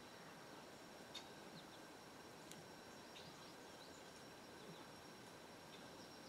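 Near silence: faint outdoor background hiss with a few brief, faint high chirps and a single soft click a little over a second in.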